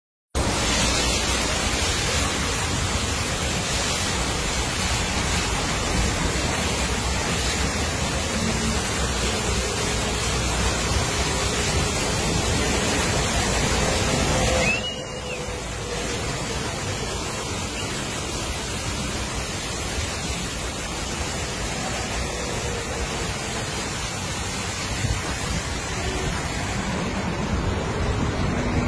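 High-pressure water jets of a drive-through truck wash spraying a dump truck's body and wheels: a steady rushing hiss of spray. It drops a little in level about halfway through.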